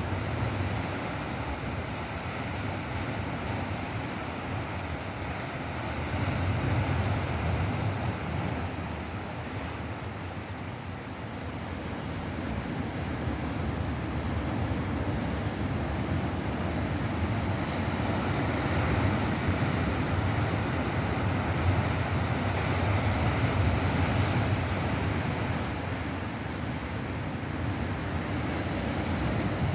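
Ocean surf breaking and washing on the shore, a continuous rushing that swells and ebbs over several seconds, with wind buffeting the microphone.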